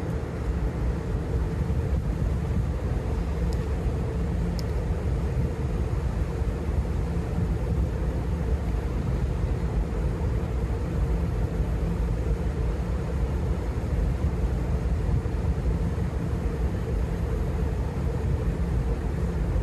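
Steady low rumble of running marine machinery, such as a ship's diesel engines or generators, with a faint constant hum above it.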